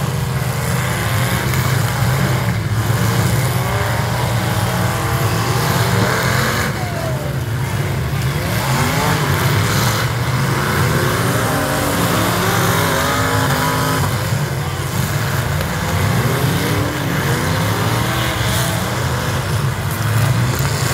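Demolition derby stock cars' engines running and revving in the arena, a steady low rumble with pitch rising and falling as they accelerate.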